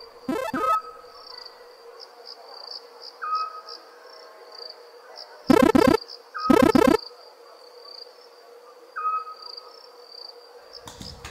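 Crickets chirping in a steady, pulsing high trill, with a faint steady hum underneath and a short rising chirp every few seconds. Two loud short bursts cut in about five and a half and six and a half seconds in.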